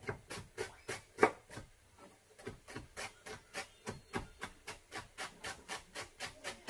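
Knife chopping onion on a cutting board: quick, even strikes about five a second, with a short pause about two seconds in. The loudest strike comes just after a second in.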